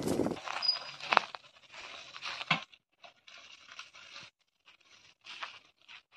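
Footsteps crunching through a carpet of dry fallen leaves in an irregular walking rhythm, with one sharp crack about a second in.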